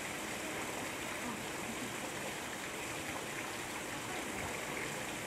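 Steady splashing of water falling down a rock face into a shallow pool, a small artificial waterfall in a zoo enclosure.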